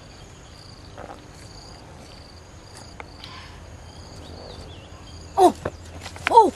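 Faint high-pitched chirping of insects repeating over a steady background of forest ambience, then about five seconds in two loud calls that slide down in pitch.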